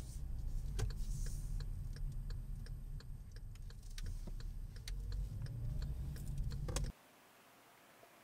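Car driving, heard from inside the cabin: a steady low road and engine rumble with light ticking about twice a second. It cuts off suddenly near the end to a faint hiss.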